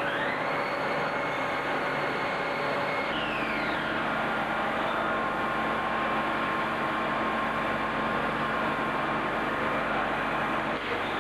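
Production lathes running in a turning shop: a steady din of machine noise with several held whining tones. A whine rises in pitch at the start, another falls away about three seconds in, and a third climbs again near the end.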